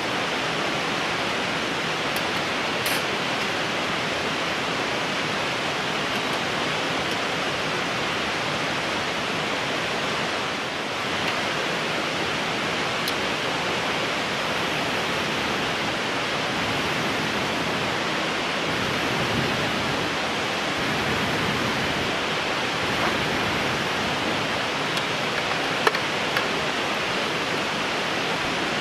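Steady rushing noise of running water, with a few sharp pops from a burning wood fire.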